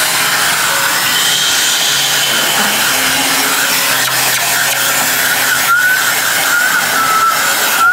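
Handheld electric hair dryer running steadily, blowing air over a wet puppy's coat, with a thin high whine that wavers slightly near the end.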